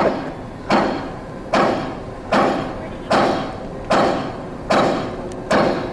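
A heavy, even pounding: seven sharp metallic thuds about every 0.8 seconds, each with a short ringing tail, typical of machinery or hammering on metal.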